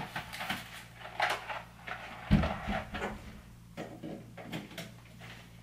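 Rummaging in a kitchen wall cupboard: a string of light knocks and clatters as items and a box of dry pasta are moved, with one heavier thump a little over two seconds in as the cupboard door shuts.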